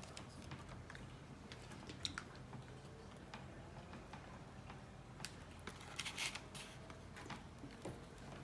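Faint scattered clicks and short scrapes of a metal spoon and crisp tostadas being handled over a glass baking dish and a paper plate, with a brief cluster of scraping about six seconds in, over a steady low hum.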